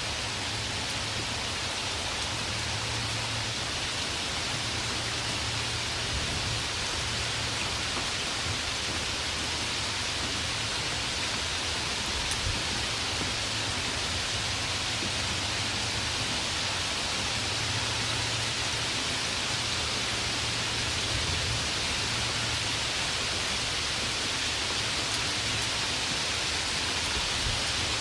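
Steady rain falling: an even, unbroken hiss with scattered faint drop ticks and a low steady rumble underneath, with no thunder.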